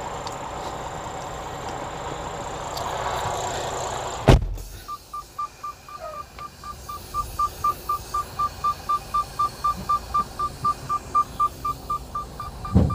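Semi-truck running with the cab door open, then a loud slam about four seconds in, after which the outside noise drops away. A warning chime then beeps steadily inside the cab, about three times a second, with another thump near the end.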